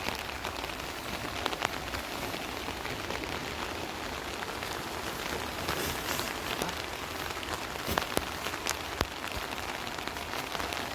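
Steady rush of a fast-flowing flood river, an even watery hiss broken by scattered sharp splashes and clicks, a few of them louder.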